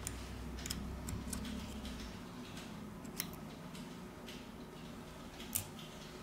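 Faint, scattered small clicks and ticks of a plastic SIM card tray and metal tweezers being handled against the phone's frame as the tray is pulled out, with a slightly louder click about five and a half seconds in.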